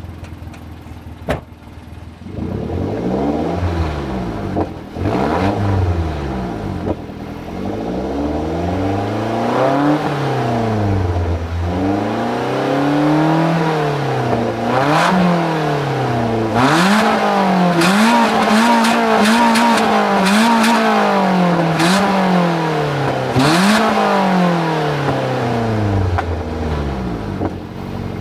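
Toyota Duet's K3-VE 1.3-litre four-cylinder engine breathing through a semi-straight-piped exhaust with the muffler largely removed, revved again and again while parked. It climbs and falls in a run of blips, then is held higher with quick dips before dropping back toward idle near the end. The exhaust note is rough and raspy.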